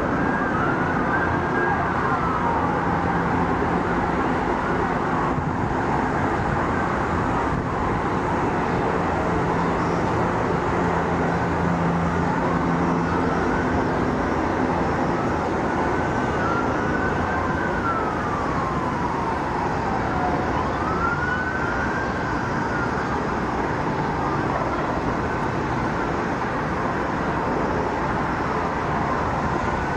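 Emergency-vehicle sirens wailing up and down several times over a steady hum of city traffic.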